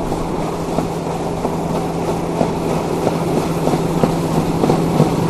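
Compact cab tractor with a front-mounted snowblower running steadily while clearing snow, its engine giving a constant low drone. Scattered sharp clicks become more frequent near the end.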